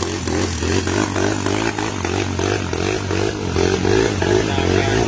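Motorcycle engine running with a steady low drone and a rhythmic rattling pulse about three times a second.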